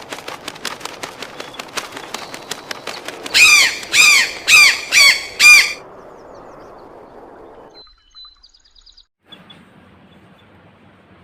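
A parrot gives a quick run of short chirps and clicks, then five loud, harsh squawks about half a second apart, before falling quiet.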